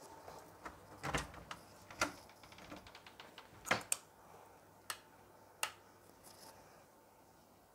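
A wooden interior door being opened by its knob: a series of sharp clicks and knocks from the knob, latch and door, the loudest a double knock a little under four seconds in, with small rattling ticks before it.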